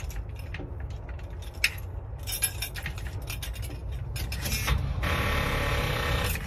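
A food truck's engine being cranked by the starter without catching, with keys jangling at the ignition. The sound grows louder in the last couple of seconds. A mechanic put the no-start down to too little petrol in the tank.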